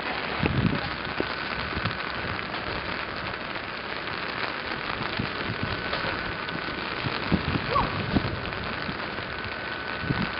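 Heavy rain falling steadily: a dense, even hiss with a few short low thumps.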